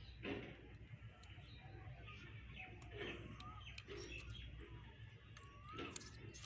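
Faint birds calling: short whistled notes and chirps, several times, over a steady low hum and scattered small clicks.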